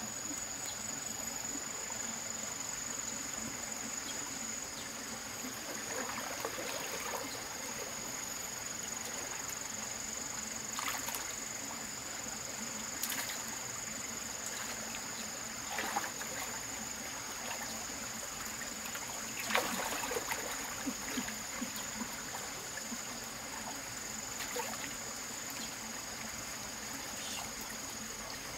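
Stream water trickling under a steady, high-pitched insect drone, with a few short sharp sounds now and then, the loudest a cluster about two-thirds of the way through.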